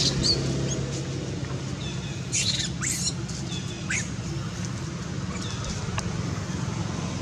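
Young macaques giving short, high-pitched squeals several times, one a quick falling cry about four seconds in, over a steady low hum of distant traffic.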